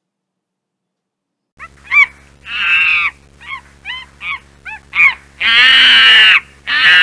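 Monkey calls starting about a second and a half in: a string of short chattering calls, then, from about five seconds in, long loud screeches.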